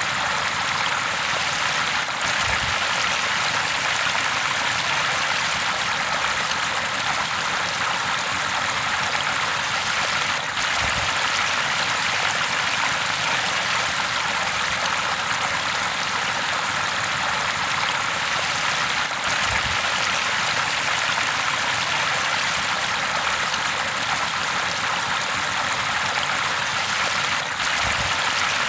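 River water flowing steadily over rocks, a continuous rushing babble without pauses.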